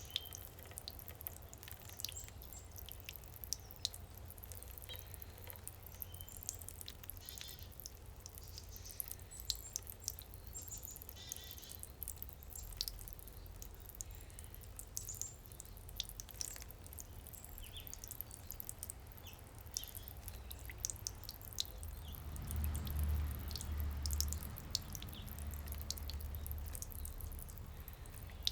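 Small songbirds chirping in short, high calls scattered throughout, over water dripping and trickling in a garden fountain. A low rumble swells for a few seconds about three quarters of the way through.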